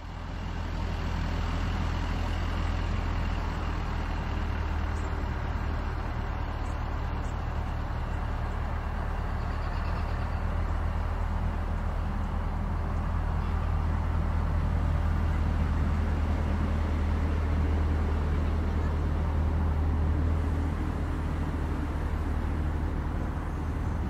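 A motor vehicle engine running steadily, a loud low hum that fades in over the first second and holds level throughout.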